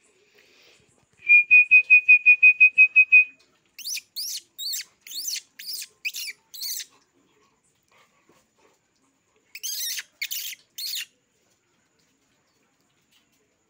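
A quick run of about a dozen short, high chirps on one even pitch. Then come two groups of sharp chirps that each sweep downward in pitch: about eight, a pause of a few seconds, then four more.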